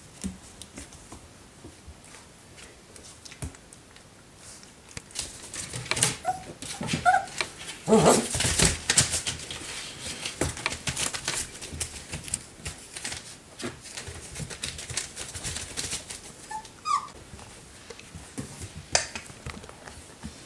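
Four-week-old puppies giving a few short, high whimpers and squeaks over a busy run of quick scratching and clicking, puppy claws pawing at a plywood pen wall; the scratching is thickest in the middle.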